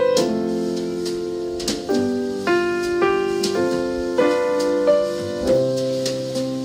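Slow piano music, with notes and chords struck about once or twice a second and left ringing.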